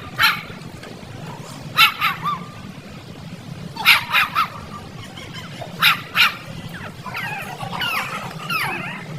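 A dog barking in short, high yaps, two or three at a time about every two seconds, then whining with wavering pitch near the end.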